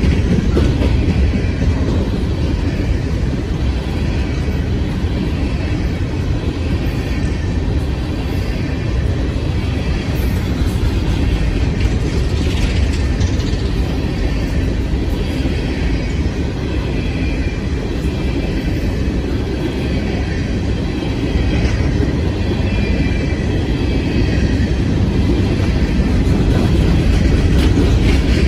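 Open-top coal hopper cars of a CSX freight train rolling past: a steady loud rumble of steel wheels on the rails, with a faint high wheel squeal now and then.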